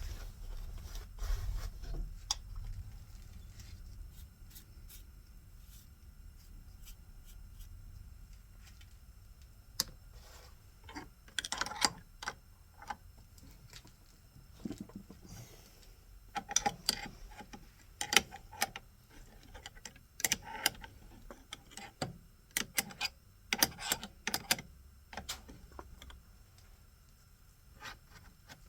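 Scattered light clicks, taps and clinks of metal tools and parts being handled, busiest in the second half, over a low hum that fades in the first few seconds.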